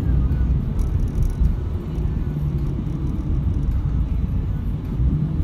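Car driving at steady speed, heard from inside the cabin: a continuous low rumble of engine and tyre noise with a faint steady hum.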